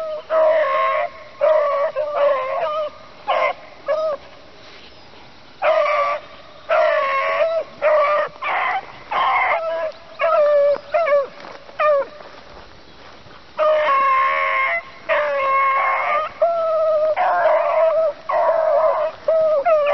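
A pack of beagles baying on a rabbit's scent trail, several voices overlapping in bursts of long and short bays, with two brief lulls. The dogs are working a hot line just before the rabbit is jumped.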